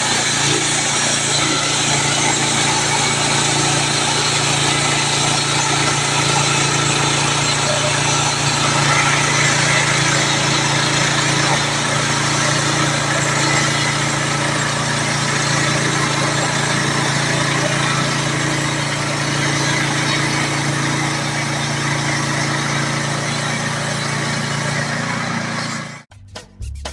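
Woodland Mills portable band sawmill running steadily on its small gasoline engine while sawing pine logs, a constant engine hum under the hiss of the band blade. It cuts off suddenly near the end.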